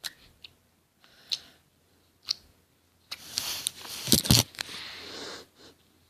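Hands handling plastic slime containers: three sharp clicks, then a two-second rush of noise with a few loud knocks close to the microphone.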